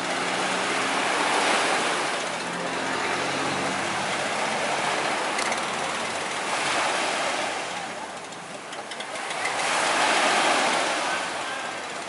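Surf breaking on a sandy beach, a wash of noise that swells and ebbs every few seconds. A faint low hum underneath fades out in the first few seconds.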